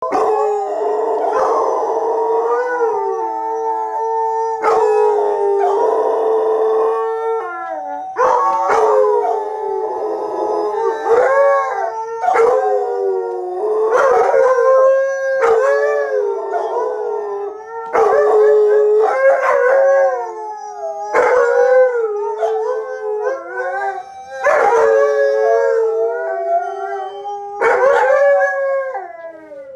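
Three Alaskan Malamutes howling together, their long howls overlapping, each voice gliding up and down in pitch and new howls starting every second or two.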